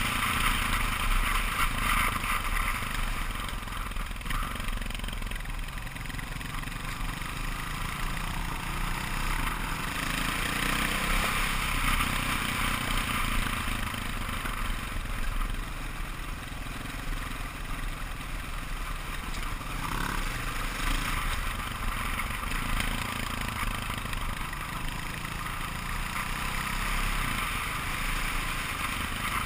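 KTM 530 EXC dual-sport motorcycle's single-cylinder four-stroke engine running steadily under way, mixed with wind rush on the helmet camera and tyres on gravel; the level swells and eases gently with the throttle.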